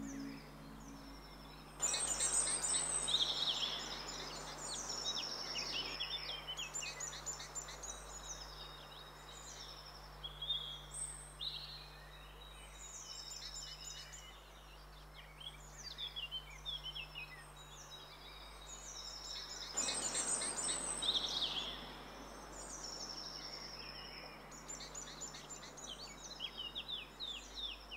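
Songbirds chirping and trilling in quick, high, repeated phrases, over a soft rushing wash that swells about two seconds in and again around twenty seconds.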